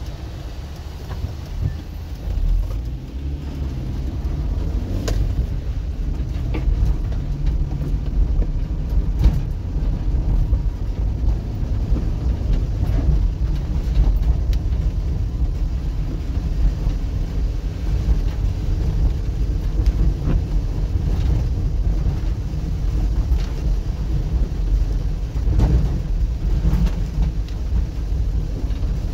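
Car engine and tyre noise on a wet road, heard from inside the cabin as a steady low rumble, with a few light knocks now and then.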